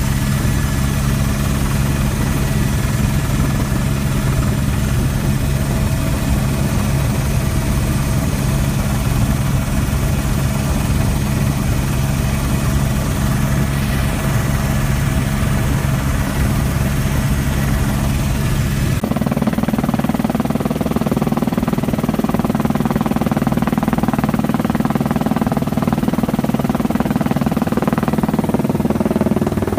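Helicopter engine and rotor noise heard from inside the cabin in flight: a loud, steady drone with a low hum. About two-thirds of the way through, the tone changes abruptly, the hum moving higher and the hiss thinning, without getting quieter.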